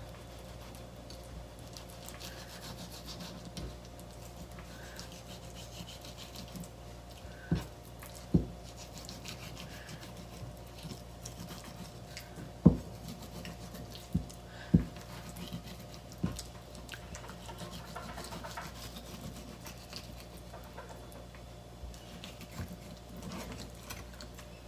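Kitchen knife scraping and sliding along a plastic cutting board as skin is cut from cod fillets, with a few sharp knocks of the blade on the board, the loudest about halfway through.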